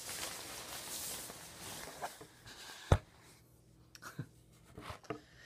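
Rustling handling noise for about two and a half seconds, then one sharp knock about three seconds in, followed by a few faint clicks.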